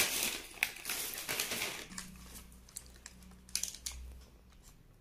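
Plastic snack packets crinkling and rustling as they are handled. The rustle is densest in the first two seconds, then thins to a few scattered crackles.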